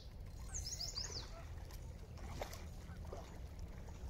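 Wild birds calling, with two quick runs of high chirping notes in the first second and a half and a few scattered lower calls, over a steady low rumble. One sharp click about two and a half seconds in.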